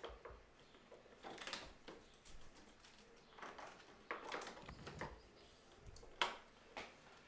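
Faint handling noises from fitting an adhesive-backed trim strip to a window frame: scattered rustles and light taps, with one sharper click about six seconds in.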